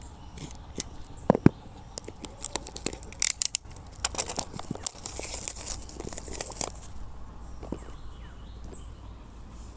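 Plastic shrink-wrap on a phone's retail box being cut and torn open: a few sharp clicks and snaps, then a few seconds of crinkling and tearing plastic starting about four seconds in.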